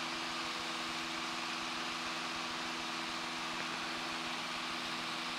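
Light single-engine piston airplane's engine running steadily in the climb, an even drone heard from inside the cockpit.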